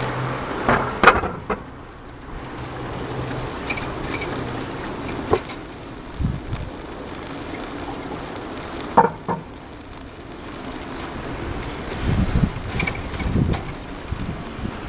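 Street noise while cycling. A steady low engine hum fades out over the first few seconds, a few sharp clicks and rattles come from the bikes, and low gusts of wind buffet the microphone near the end.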